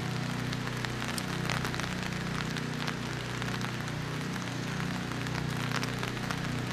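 Rain falling, a steady hiss scattered with many small sharp ticks of drops striking, over a low steady hum.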